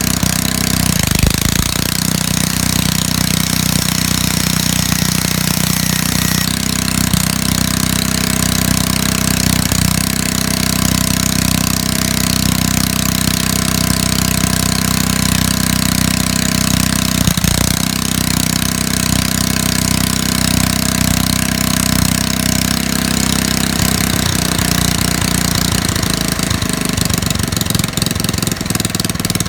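Small 1.7 kW portable generator's engine running steadily.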